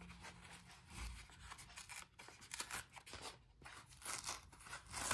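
Stiff kraft-paper mailer envelope being torn open by hand: a run of short, scratchy rips and crinkles of the paper, with a sharper tear near the end.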